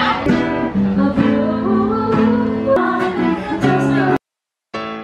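Acoustic guitar with a singing voice, a slow song with held notes. The music cuts off abruptly about four seconds in, leaving a moment of dead silence before other sound resumes near the end.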